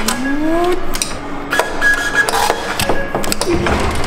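Metro station ticket gate in use: short electronic beeps from the ticket validator among a series of clicks and knocks, with a brief rising tone at the start.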